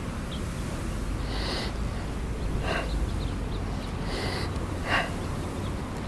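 A man breathing hard as he squats with a kettlebell: four short, sharp breaths in the space of a few seconds, the loudest about five seconds in, over a steady low rumble.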